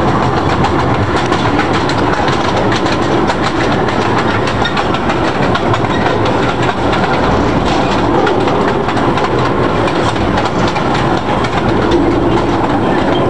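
Miniature zoo train running steadily, its wheels clicking and clattering over the rails under a constant rumble of running noise, heard from an open passenger car.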